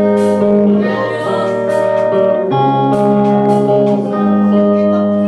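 Live band music with electric guitar and drums: held chords that change every second or so over a steady cymbal beat.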